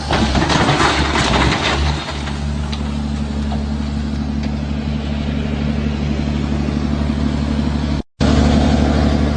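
A large engine running steadily, with a louder stretch of noise and knocks over the first two seconds. The sound drops out abruptly for a moment just after eight seconds, then the engine sound comes back.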